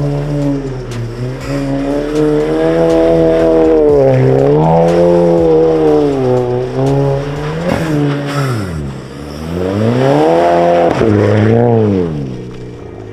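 Car engine revving up and down repeatedly during a drift on snow, its pitch rising and falling in long swings several times before fading near the end.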